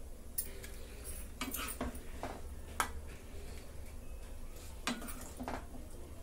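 A spatula and a steel ladle scraping and knocking against a kadhai as cooked potato-and-vegetable curry is scooped out into a serving dish: a few scattered clinks and scrapes, over a low steady hum.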